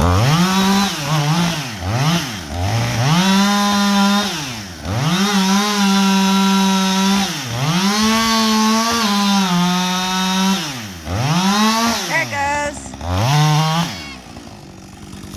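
Two-stroke chainsaw revved to full throttle and let back to idle about six times, the pitch sagging a little under load as in cutting, then shut off near the end.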